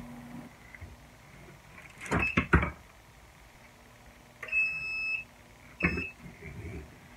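Clamshell heat press being clamped shut, with a few sharp clunks about two seconds in. Its control then beeps: one longer, steady beep about four and a half seconds in and a short beep with a knock near six seconds, as the timed press begins.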